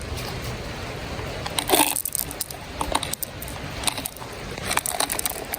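Small rocks of top dressing being scooped and dropped onto a succulent planting, clicking and crunching against each other in irregular clusters from a couple of seconds in.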